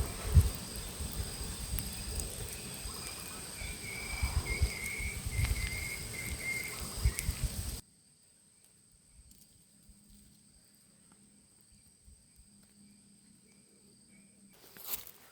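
Insects chirping outdoors, a steady high drone with a pulsing chirp below it, over low rumbling and occasional knocks. About eight seconds in, the sound cuts off abruptly to near silence, with one click near the end.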